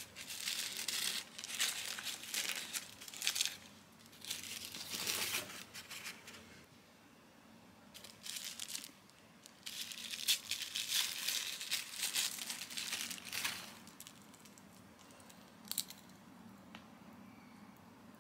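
Packaging being crinkled and torn open by hand, in several rustling bouts with a lull in the middle and a single click near the end.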